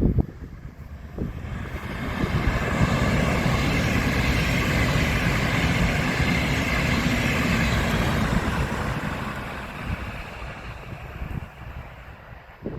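A train passing by on the line: rolling wheel-and-rail noise that swells over a couple of seconds, holds steady for several seconds and then fades away.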